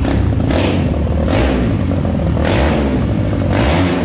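Tuned motorcycle engine with an aftermarket exhaust being revved in short throttle blips, about five, over a steady low running note.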